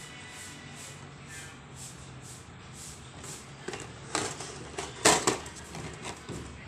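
Cardboard model-kit box handled and turned over in the hands: a few short scraping, rubbing rustles in the second half, the loudest about three-quarters of the way through.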